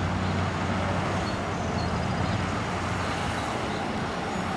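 Heavy work equipment's diesel engine idling steadily, a low even hum.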